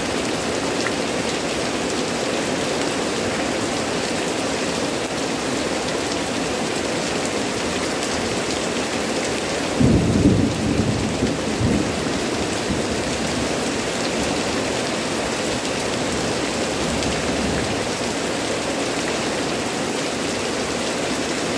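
Heavy tropical rain falling steadily. About halfway through, a low rumble of thunder starts suddenly and surges for about two seconds before dying back under the rain.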